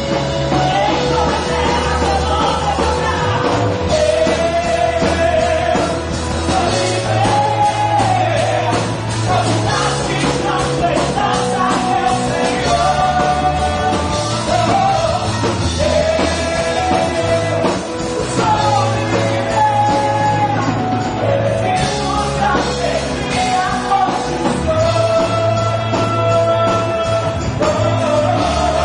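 Live worship music with singing over a rock-style band, with bass and drums keeping a steady beat.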